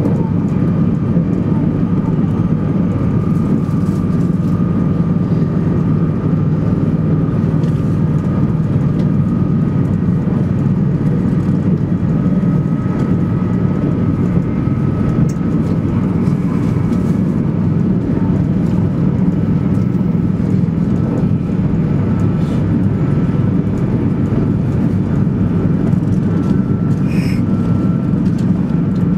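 Steady running noise inside the cabin of a 200 series Shinkansen travelling at speed: an even low rumble and rush, with a faint steady whine above it.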